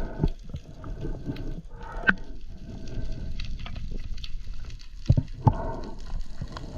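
A freediver breathing through a snorkel: hoarse breaths with a tube resonance, about two seconds apart, with scattered small clicks and knocks between them.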